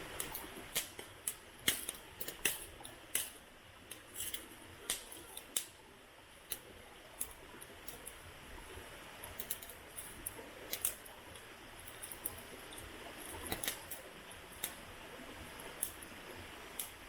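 Wood fire crackling, with irregular sharp pops and snaps over a faint hiss.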